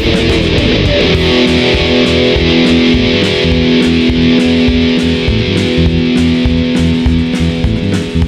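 Instrumental rock music: distorted electric guitars with bass and a driving drum beat. About a second in, the guitars settle into long held notes over the steady beat.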